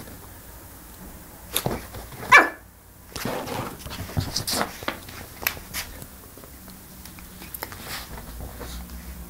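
Yorkshire terrier puppy giving one short, high bark about two seconds in, with a few sharp clicks and scuffles around it.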